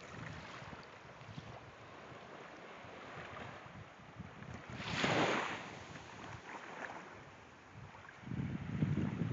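Wind on a phone microphone over gentle surf washing onto a sandy shore. There is a brief louder rush about five seconds in, and a low wind rumble builds near the end.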